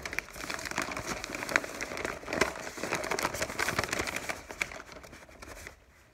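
Paper flour bag and foil Mylar bag crinkling and rustling as flour is poured from the paper bag into the Mylar bag, a dense crackle of small clicks that dies away near the end.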